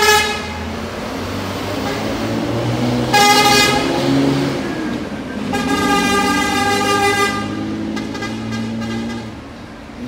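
Intercity bus horn sounding three times as the bus pulls away: a short blast, a blast of under a second about three seconds in, and a longer blast of about two seconds from the middle that trails off. The bus's engine runs low underneath.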